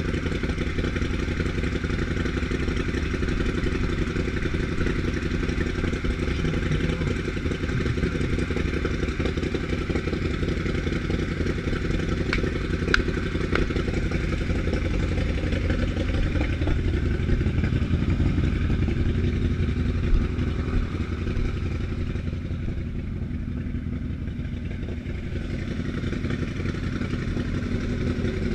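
An engine idling steadily at an unchanging speed, with one sharp click about halfway through.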